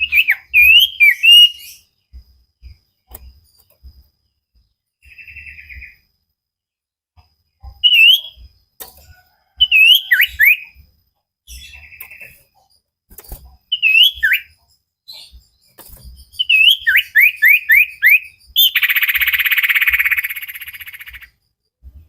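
Common iora (cipoh) singing: bursts of clear whistled notes that swoop up and down, with short buzzy notes between phrases. About nineteen seconds in comes a loud, harsh, buzzy trill lasting roughly two and a half seconds.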